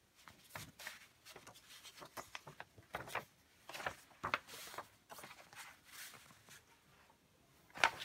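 Glossy paper DVD insert leaflet being handled and unfolded by hand: a series of brief, irregular rustles and crinkles, with a louder cluster near the end.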